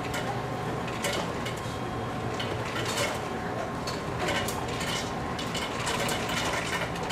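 Fast-food restaurant ambience: frequent clinks and clatter of dishes, trays and utensils over a steady low hum of kitchen equipment.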